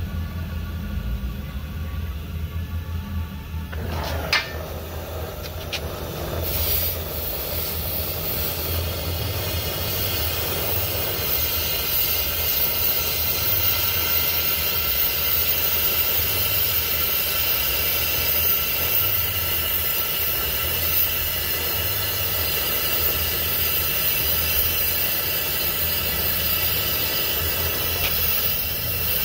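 Gas torch flame burning steadily against a two-stroke motorized bike exhaust pipe to burn off carbon buildup: a low rumble with a broad hiss over it. The hiss comes in abruptly about four seconds in and grows brighter a couple of seconds later.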